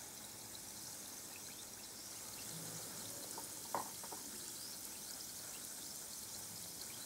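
Bath ball fizzing as it dissolves in a basin of water: a faint steady hiss with fine crackling. A single small plastic click a little under four seconds in, as a toy figure is set down.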